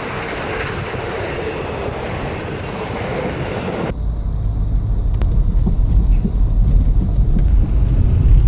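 Victorian Railways R class steam train passing at speed: a loud, rushing rail noise. About four seconds in it cuts off abruptly to a low rumble that grows louder.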